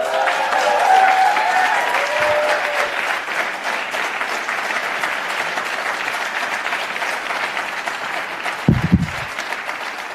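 Audience applauding, with whoops and cheers over the clapping at the start; the applause slowly thins out, and a brief low sound stands out near the end.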